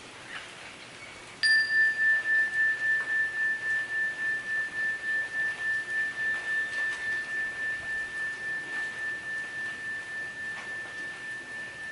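A tubular metal chime struck once with a mallet about a second and a half in, ringing one clear high tone that pulses gently as it slowly fades and is still sounding at the end.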